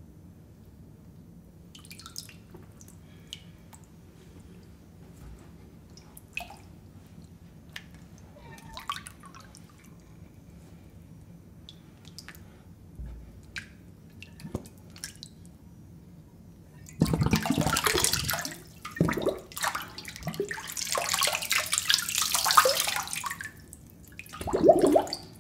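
Shallow water on a wooden surface. At first there are only scattered small drips and clicks. From about two-thirds of the way in, hands splash and slosh loudly in the water, in uneven bursts with short pauses.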